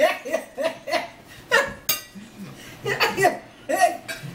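A woman laughing in a quick run of short, rhythmic "ha" pulses, about four a second. More bursts of laughter follow toward the end.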